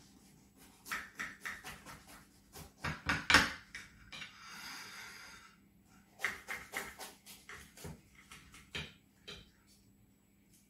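Knife cutting through the crisp baked pastry crust of a steak pie: a run of crunches and clicks, the loudest about three seconds in, a scraping stretch around four to five seconds, then more scattered clicks as the blade meets the plate.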